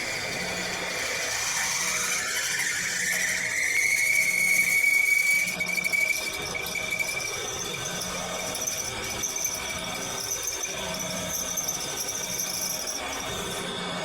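High-pitched mechanical whine, rising in pitch over the first few seconds, then holding steady and fading out about halfway through.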